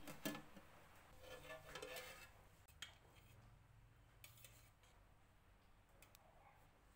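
A steel plate lid clinks once as it is set on a steel cooking pot, followed by faint scraping and light clinks of a steel slotted spoon turning cooked biryani rice in the pot.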